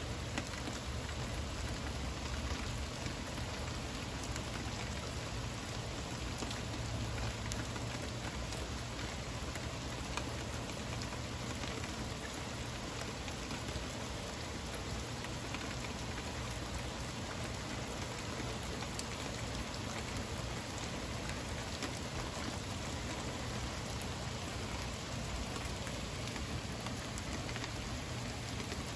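Heavy rain falling steadily on a paved street and lawns, a constant hiss flecked with the ticks of individual drops.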